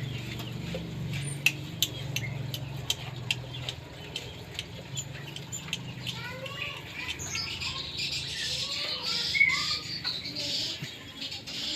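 A run of sharp ticks and taps, then birds chirping and whistling in short rising and falling notes from about six seconds in, over a thin high twittering.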